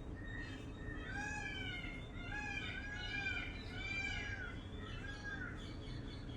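Bird song: a run of short whistled notes, each rising then falling in pitch, repeated from about a second in until near the end, over a steady low background rumble.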